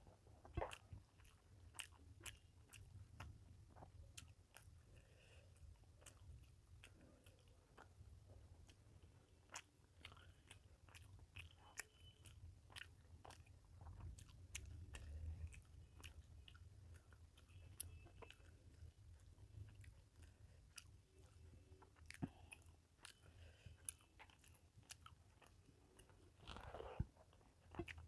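Faint close-up eating sounds: a person chewing rice and fish curry, with many small mouth clicks and smacks scattered throughout over a low steady hum.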